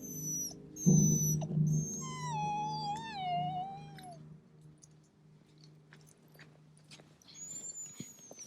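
Sled dogs whining: short high whines in the first two seconds, then a longer wavering whine that slides down in pitch, with a last faint high whine near the end. A low pulsing hum runs underneath for most of the time.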